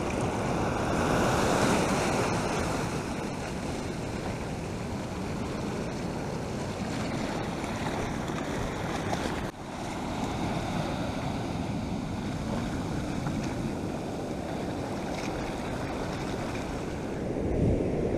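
Ocean surf breaking and washing in around the shore, strongest in the first few seconds, with a brief break about halfway through. Wind buffets the microphone near the end.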